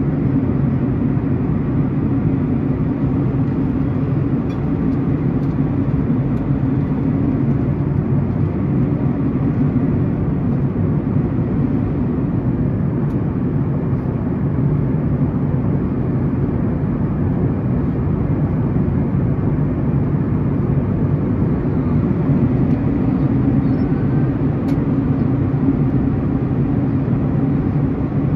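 Steady cabin drone of a Boeing 737-900ER in cruise, heard inside the cabin at a window seat beside its CFM56-7B turbofan engine: a constant low hum with a hiss of airflow over it.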